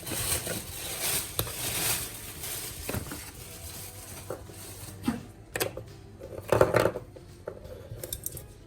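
Kitchen items being handled: rustling for the first couple of seconds, then scattered clinks and sharp knocks, loudest about six and a half seconds in.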